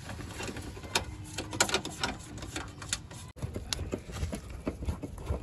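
Irregular small clicks and taps of tools and plastic fasteners as a car's front bumper is being opened.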